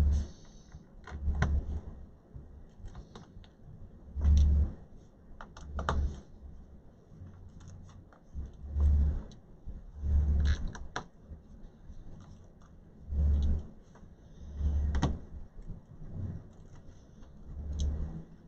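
Light clicks and small metallic rattles with a dull knock in each burst, coming about every second and a half to three seconds, from hand work on a MacBook Air's aluminium bottom case: a small screwdriver working the case screws and the laptop being handled on the bench.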